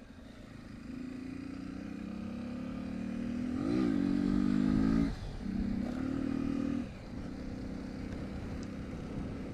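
Honda XR 250 Tornado's single-cylinder four-stroke engine under way, its note climbing as the bike accelerates and loudest about four to five seconds in. The throttle is shut abruptly around five seconds in, opened again briefly, then eased back near seven seconds to a steadier, quieter cruise.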